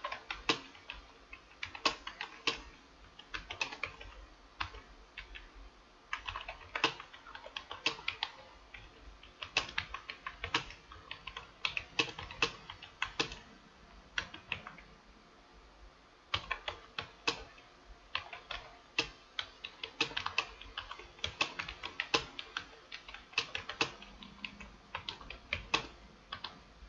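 Computer keyboard keys clicking in quick, irregular runs with brief pauses: a person touch-typing a Hindi passage in a timed typing test at about 48 words a minute. There is one longer lull about halfway through.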